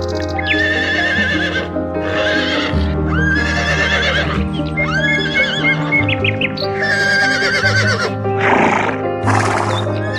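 Horses neighing: about five quavering whinnies in quick succession, followed by two short, rough noisy bursts near the end, over steady background music.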